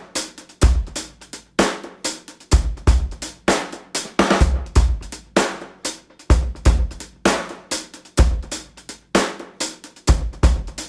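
Background music: a steady drum-kit beat of kick, snare and hi-hat, with a heavy kick about once a second.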